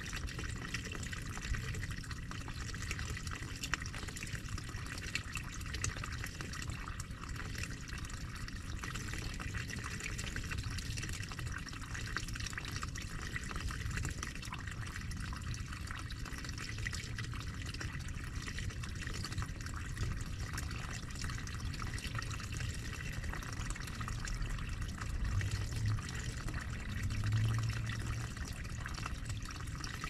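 Water running and trickling in a small garden stream, a steady splashing rush. Two brief low rumbles come near the end.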